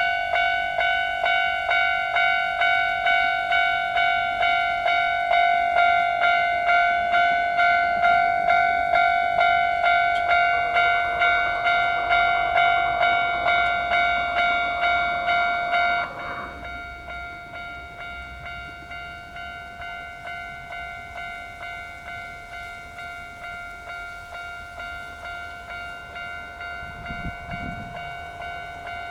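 Japanese railway level-crossing warning bell starting up: an electronic ding struck over and over at an even pace. About sixteen seconds in it drops to a noticeably quieter level and keeps ringing.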